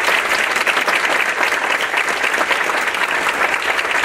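Audience applauding, with many hands clapping in a dense, steady patter.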